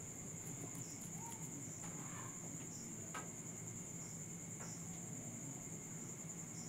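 Crickets trilling steadily at a high pitch, breaking off briefly every second or so, over a faint low hum and a few small clicks.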